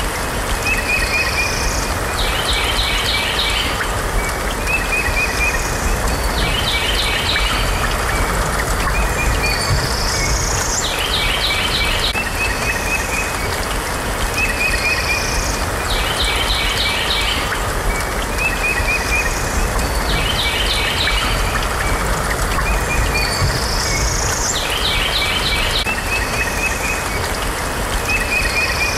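Background nature-sound track: a steady rushing noise with a bird call repeating about every four seconds, each a short run of chirps, a rising whistle, then a fast trill.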